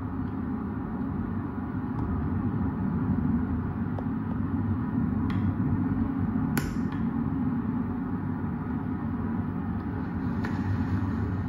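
Steady low rumble, with a few faint sharp clicks, one about two-thirds of the way in followed by a brief hiss.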